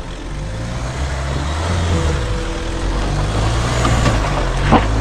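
Mahindra Thar's engine running at low revs as the 4x4 crawls slowly over a rutted dirt track, its pitch rising and falling a little with the throttle. A short rising squeal near the end.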